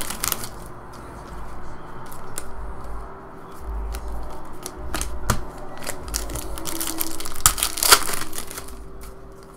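Thin plastic trading-card pack wrapper crinkling in the hands, with the crisp snap of cards being flipped through, in irregular bursts with the loudest near the end. A faint steady hum runs underneath.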